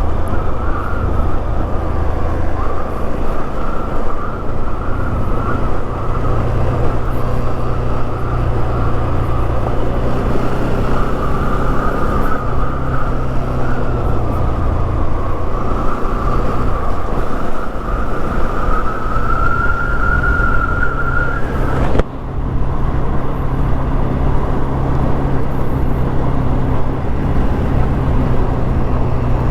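Motorcycle running steadily on the road with wind on the helmet or body camera, a low drone under a whine that wavers gently in pitch. About 22 seconds in the sound breaks off abruptly and picks up again at a slightly different pitch.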